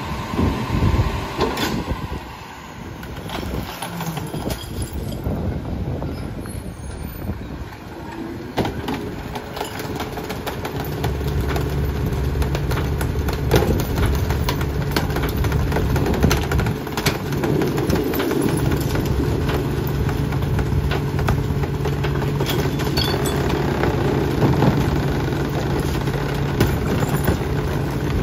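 Rear-loader garbage truck's engine running, growing louder and steadier about ten seconds in, with scattered knocks and clanks as trash carts are tipped into the hopper.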